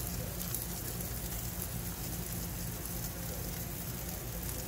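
Steaks sizzling on a gas grill over lit burners: a steady hiss with faint crackles throughout, over a low steady rumble.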